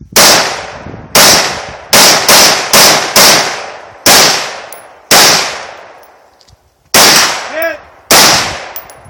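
A string of about ten loud gunshots fired at an uneven pace: some in quick succession in the first few seconds, then single shots about a second apart. Each shot trails off in a long echo.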